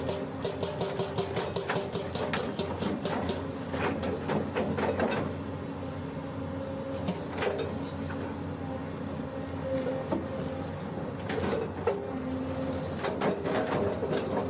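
Excavator-mounted hydraulic breaker hammering in rapid, even blows over the excavator's diesel engine running; after about five seconds the blows thin out to scattered single knocks, then quicken again near the end.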